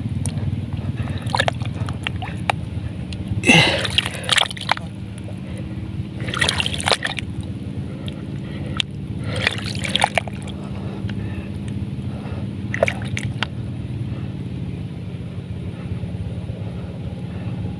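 Muddy paddy water sloshing and gurgling in a few short splashes at an eel's burrow, where a hooked eel is still pulling on the line, over a steady low hum.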